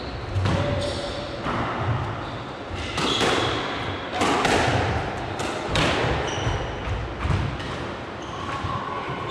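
A squash rally: the ball is struck by rackets and slaps off the court walls, sharp knocks coming about every second and a half.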